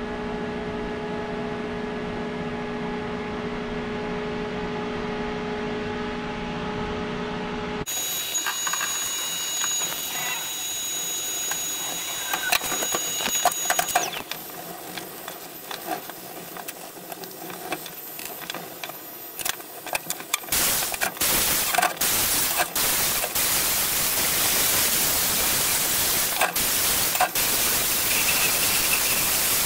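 A steady hum for about the first eight seconds, then an abrupt change to scattered light clicks and knocks. From about two-thirds of the way in, an angle grinder runs on the stainless steel welds: a loud, steady hiss with brief breaks.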